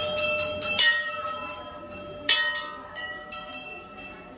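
Hanging brass temple bells rung again and again, the strikes overlapping so the ringing carries on without a break. The loudest strike comes a little past two seconds in.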